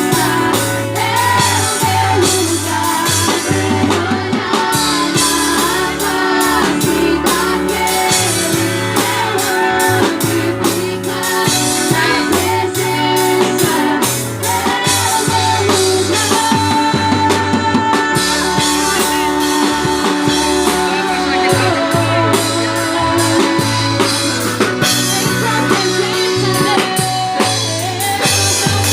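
Band music with drum kit, bass and guitar playing a steady groove, with a wavering melody line above that may be singing.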